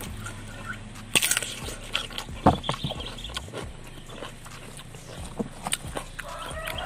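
Close-up crunching as a raw cucumber is bitten and chewed, with the sharpest crunches about a second in and again around two and a half seconds.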